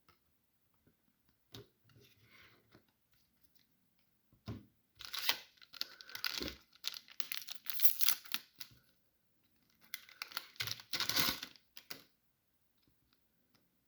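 Foil booster pack wrapper of a trading card game crinkling and tearing as it is opened, in two main stretches about five and ten seconds in.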